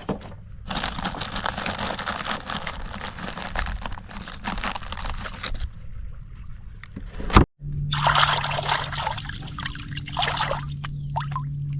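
Water splashing and trickling against shoreline rocks. A sharp click comes about seven and a half seconds in, followed by a steady low hum under the water sound.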